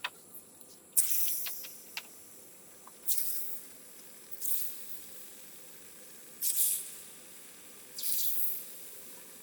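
Hot oil sizzling in five separate bursts as portions of palm-fruit fritter batter are dropped in, each flaring up sharply and dying down over about a second, with a few light clicks between.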